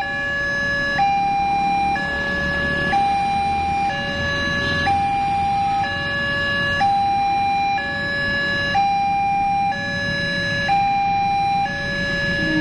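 Railway level-crossing warning alarm: a two-tone electronic signal switching between a higher and a lower note about once a second, over a low rumble, signalling that a train is approaching.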